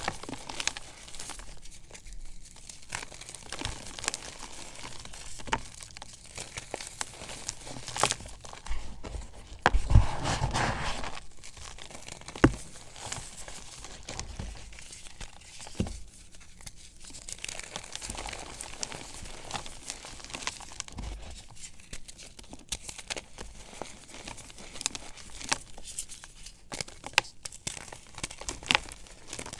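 Blocks of gym chalk crushed and crumbled between the fingers: dry, crunchy crackling and gritty rustling of breaking chalk and powder, in irregular bursts. A louder stretch of crunching comes about ten seconds in, followed by a few sharp snaps.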